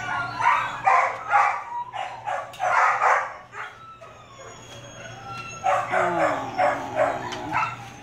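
Dog yipping in short repeated calls, about two a second, with a thin high whine between two runs of yips.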